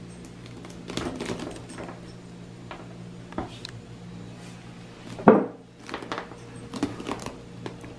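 Plastic mesh produce net rustling and scraping as it is pulled off a spiky durian, with irregular knocks of the fruit against a wooden table; the loudest knock comes a little past halfway.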